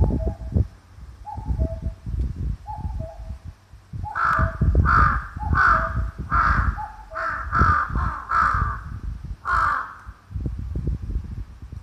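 Common cuckoo calling its two-note 'cuck-oo', falling in pitch and repeated about every second and a half. From about four seconds in a crow caws about eight times, louder than the cuckoo. Heavy wind rumble on the microphone.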